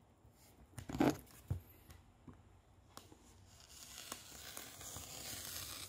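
Rotary cutter run along a cutting ruler, slicing through a sheet of flat slingshot rubber on a cutting mat: a steady hiss lasting about two seconds in the second half. Two knocks about a second in, the loudest sounds, come first.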